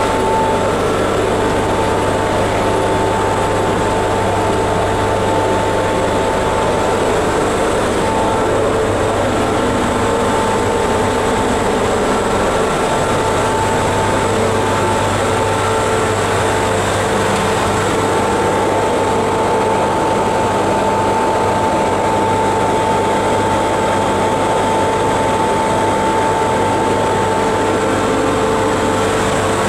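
Steady, loud running noise of the equipment in the machine room of a series 461 electric locomotive: an even machinery drone with a low hum and steady whining tones above it.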